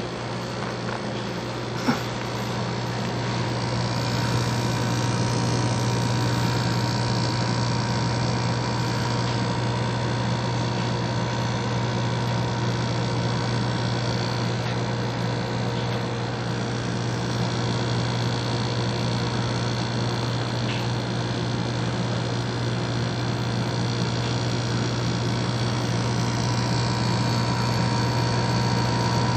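Steady hum of a running appliance with a GE RS8B1G2 rotary compressor, its motor hum under a fan-like rush. One short sharp click about two seconds in.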